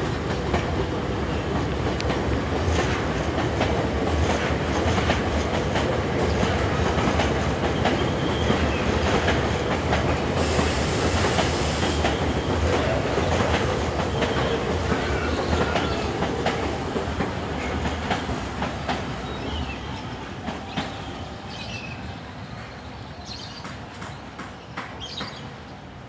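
Electric commuter train running along the line, its wheels clacking steadily over rail joints and points. The sound eases away over the last several seconds, with a few short wheel squeals near the end.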